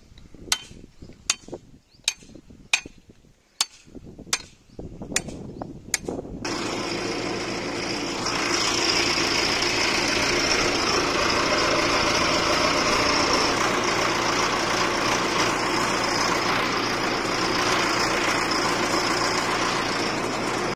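Sharp knocks at an even pace, about one every three-quarters of a second, then from about six seconds in a tractor engine running steadily, heard from on board while driving.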